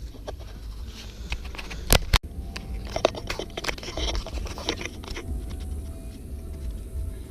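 Hand-tool and parts handling under a car's hood: scattered clicks, scraping and crunchy rustling, with two sharp knocks about two seconds in.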